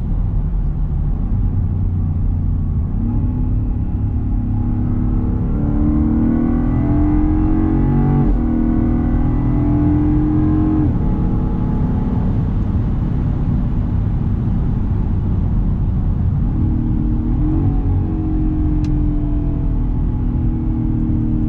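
Land Rover Defender 110's supercharged 5.0-litre V8 under acceleration: the engine note climbs, breaks with an upshift about eight seconds in and settles, then climbs again with another upshift later on.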